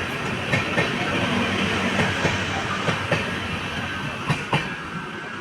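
Express train's LHB coaches rolling past at speed: a steady rumble and hiss with scattered sharp wheel clicks over the rail joints, slowly fading toward the end.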